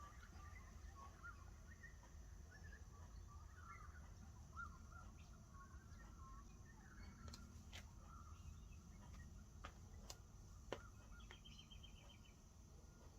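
Near silence: faint bird chirps in the background, a few soft clicks, and a quick faint trill near the end.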